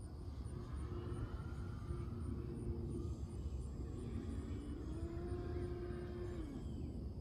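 E-flite Stearman PT-17 electric RC biplane flying overhead, its motor and propeller giving a steady tone that rises and falls in pitch as it manoeuvres, over a low rumble.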